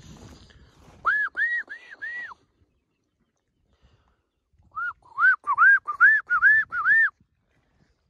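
A person whistling close by in two runs of short notes, each rising and falling: four notes, a pause, then about eight more. It is a call whistle for the camp dogs.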